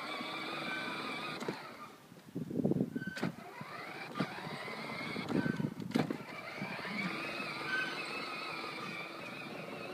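Children's battery-powered ride-on toy car running, its electric motor whining steadily with rougher rumbles from the wheels now and then.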